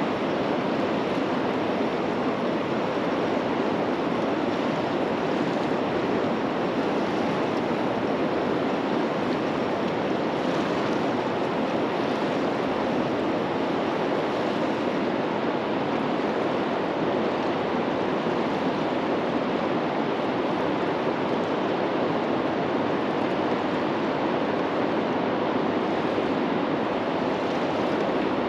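Steady rushing of river water, as in the tailwater below a lock and dam, an even hiss-like rush with no breaks or changes.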